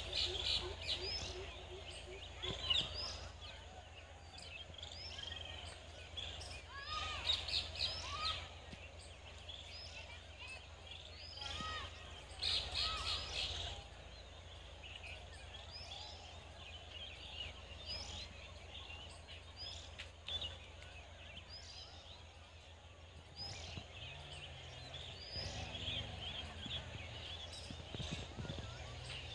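Several birds chirping and calling in short spells, the loudest about a second in, around seven seconds in and around twelve seconds in, over a steady low background hum.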